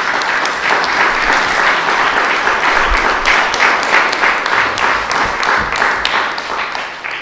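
Audience applauding at the end of a talk: dense, steady clapping that starts to die away at the very end.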